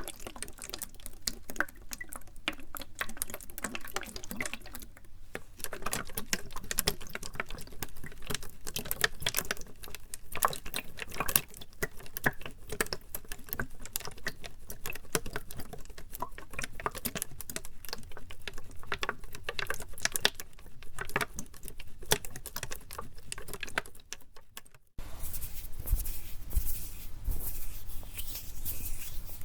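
Fingers working a plastic PET bottle close to the microphone: a fast, dense, crackly patter of small clicks and taps. About 25 s in it stops abruptly and gives way to hand sounds with more low rumble.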